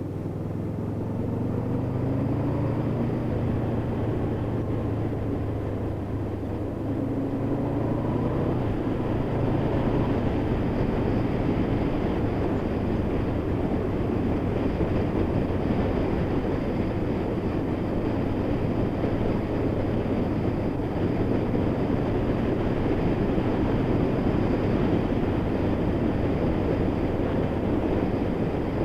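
Honda VFR800's V4 engine accelerating, its pitch rising twice in the first eight seconds or so as it pulls through the gears. It then settles to a steady cruise under a broad, constant rush of wind and road noise.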